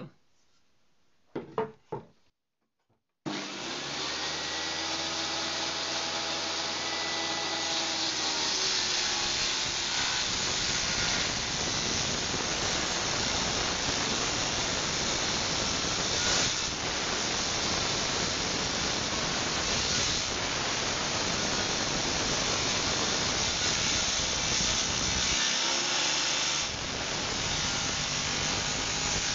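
Table saw starting up about three seconds in, its motor hum running steadily; from about six seconds in a wooden strip is fed through the blade along the fence, a continuous ripping cut with a short easing near the end. A few light knocks come before the saw starts.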